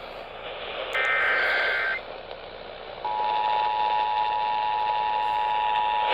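Emergency Alert System tones heard over AM radio: a one-second burst of the warbling SAME header data tones about a second in, then, after a short gap, the steady two-tone EAS attention signal (853 and 960 Hz) for about three seconds, over a hiss of radio static. The tones open a severe thunderstorm warning.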